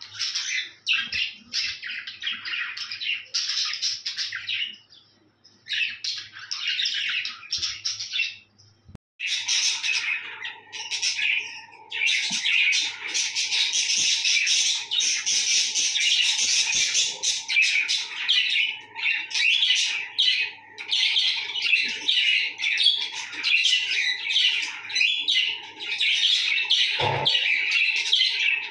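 Several budgerigars chattering and warbling, a dense run of fast chirps and squawks with short pauses about five and nine seconds in. After the second pause a faint steady tone runs beneath, and a soft thump comes near the end.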